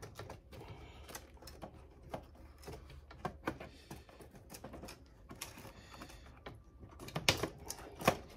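Irregular plastic clicks and knocks inside an Epson XP-15000 inkjet printer as a part is worked loose by hand, with two louder knocks near the end.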